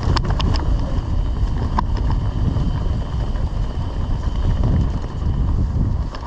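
Mountain bike rolling fast down a dirt trail: wind rumbling on the microphone over tyre noise, with a few sharp clicks and rattles from the bike near the start and again about two seconds in.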